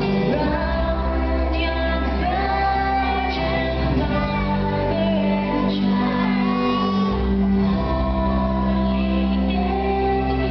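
A group of young children singing together with an instrumental accompaniment that has a steady bass line.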